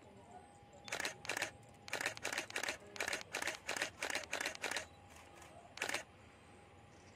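A DSLR camera shutter firing in quick bursts, about a dozen frames in some four seconds, followed by one more shot a second later.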